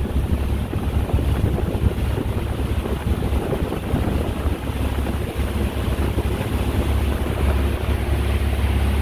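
Wind buffeting the microphone over the steady running drone of a powerboat underway.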